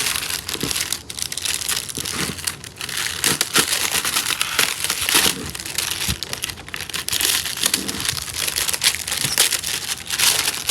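Toy packaging crinkling and crackling continuously as it is handled and pulled at to be opened.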